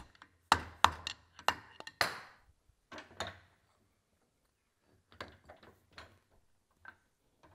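Hammer blows punching the bearing out of a gear pump's metal rear cover held in a vice: about six sharp strikes in the first two and a half seconds, the last one ringing briefly. After that come a few lighter knocks as the cover is handled in the vice.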